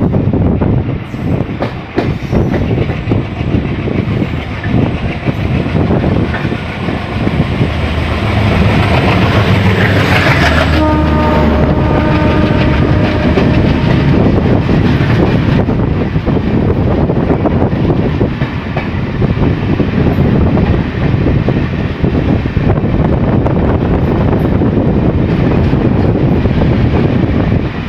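An oncoming diesel-hauled express of LHB coaches passes close by on the adjacent track, with heavy wheel-and-rail rumble, clatter and rushing air. A locomotive horn sounds for about three seconds about ten seconds in.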